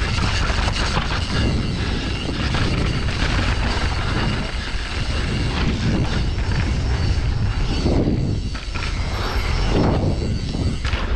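Mountain bike ridden fast down a dirt trail, heard from a rider-worn action camera: wind rushing over the microphone with the rumble of tyres on dirt, dipping briefly about eight seconds in.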